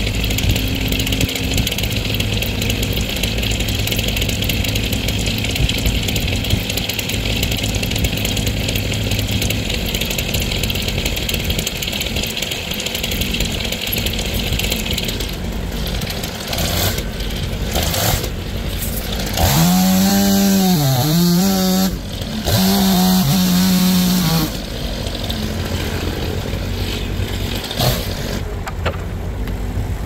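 Portable sawmill running loud and steady while it saws a log. About twenty seconds in, its engine note gets louder and dips and recovers over roughly five seconds, as under load.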